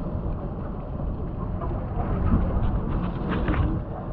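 Wind rumbling on the microphone, with a few brief crackles near the end.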